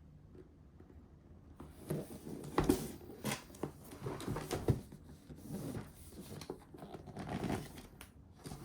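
The keyboard's box and packaging being opened and handled by hand: irregular rustling and scraping with a few sharp knocks and clicks.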